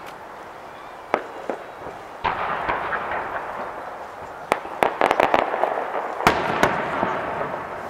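Aerial fireworks bursting overhead: a string of sharp bangs with crackling between them, a quick cluster of reports about halfway through and the loudest bangs near the end.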